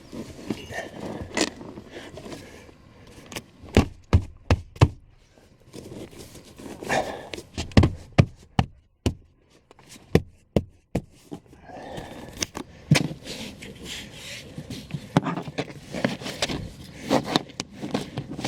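Irregular clicks, knocks and scraping from hands refitting plastic interior trim on a car, with a quick run of sharp knocks a few seconds in and another about halfway.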